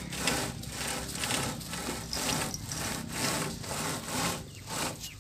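A rope rubbing against the wooden body of a loaded Bedford truck as it is pulled tight, in repeated strokes about twice a second.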